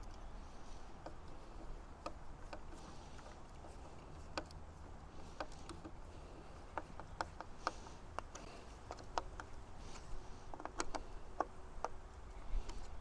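Scattered light clicks and taps, more frequent in the second half, as hands work a charge-gun holder and its metal mounting bracket on a wooden post, over a steady low background rumble.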